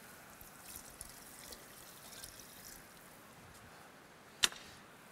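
Faint, steady, water-like sizzle from food frying in pans on a gas range, with one sharp knock about four and a half seconds in.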